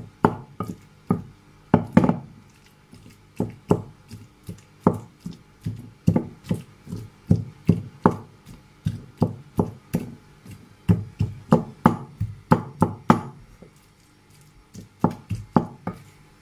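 Avocado being mashed in a bowl with the end of a long white pestle: repeated dull knocks of the pin through the soft pulp onto the bowl's bottom, about two a second, with a short pause near the end.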